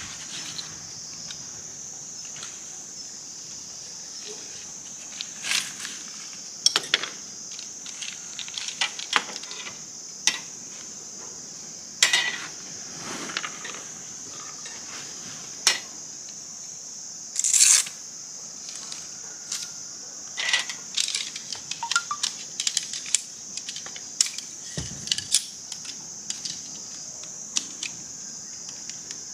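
Irregular light clicks, clinks and knocks of camp gear or utensils being handled, with a short louder scrape about two-thirds of the way through. Under them runs a steady high-pitched insect drone.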